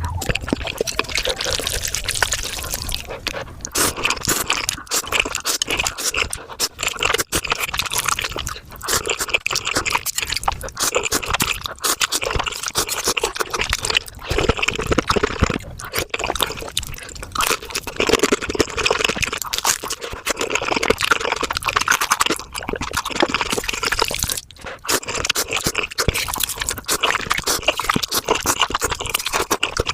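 Mukbang eating sounds sped up five times: a rapid, continuous stream of wet slurping and chewing as spicy Korean tofu soup is eaten.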